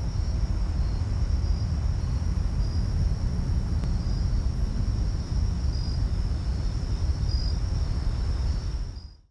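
Outdoor evening ambience: a steady low rumble under a thin, steady high insect trill with scattered short chirps. It fades out near the end.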